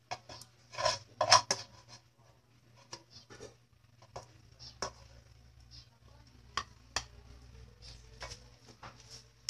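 Metal spatula clattering and scraping in a frying pan: a loud cluster of clanks about a second in, then scattered single clinks and knocks.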